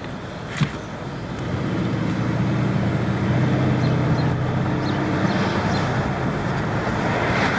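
2013 Mercedes-Benz S550's twin-turbo V8 and road noise as the car drives along: a steady hum that grows louder about a second and a half in as the car picks up speed.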